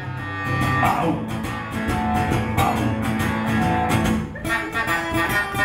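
Instrumental folk music: an acoustic guitar strummed steadily while a crumhorn plays long held, reedy notes over it.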